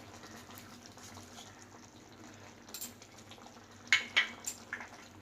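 Pineapple chutney simmering in a pan just after jaggery has gone in, a faint bubbling sizzle, with a few sharp clicks about four seconds in.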